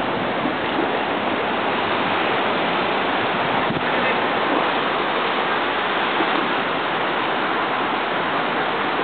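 Steady rushing background noise, even and unbroken, with no clear tones.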